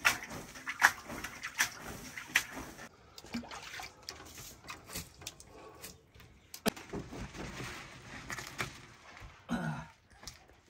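Work at a clay tandoor: several sharp slaps or knocks a little under a second apart, then quieter scuffing and rustling as a man climbs into the oven, with a brief voice near the end.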